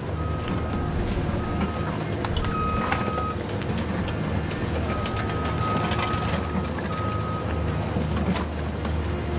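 Toy-scale RC construction machines running, with a steady low engine-like drone and a high beeping tone that comes and goes in uneven stretches, like a reversing alarm, along with scattered light clicks.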